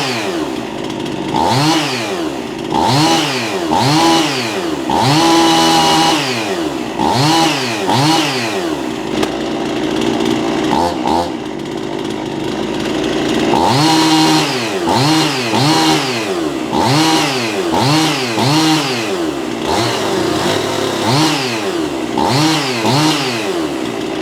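Husqvarna Model 51 Air Injection two-stroke chainsaw running and being blipped over and over, the engine note rising and falling about once a second. A steadier idle sits in the middle before the revving starts again.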